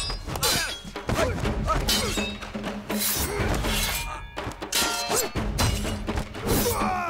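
Steel sword blades clashing again and again, each strike a sharp metallic clang with a brief ringing, about one or two a second, over dramatic film music.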